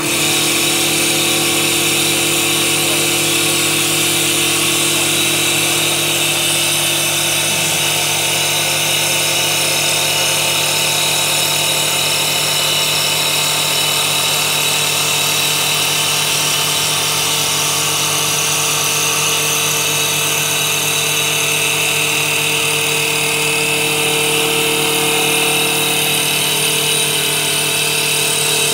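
STL1530-A auto-feeding CNC wood lathe running steadily, its spindle turning a wooden blank while the cutter shaves it: an even machine hum with a strong high hiss of cutting.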